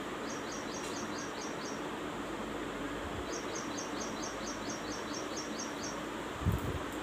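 A bird giving a rapid series of short, high chirps, about six a second, in two runs, over a steady background hiss; a low thump near the end.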